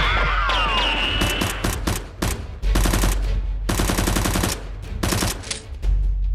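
Several bursts of rapid automatic gunfire, the kind of machine-gun sound effect dubbed over blaster fights, played over a steady low rumble. A wavering pitched tone sounds in the first second or so.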